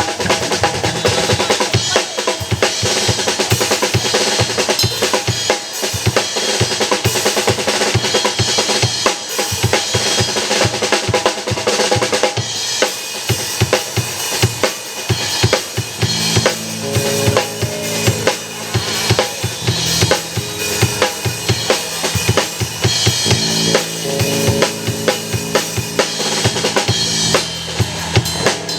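Live drum kit playing a fast, busy rhythm of kick drum, snare, rimshots and cymbals, with held pitched notes from other band instruments underneath that grow clearer about halfway through.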